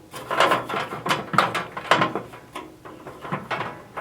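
Plastic vend motor and its auger coupling clicking and knocking against the vending machine's tray as the motor's bottom locator tabs are seated, about six or seven irregular clicks in a row.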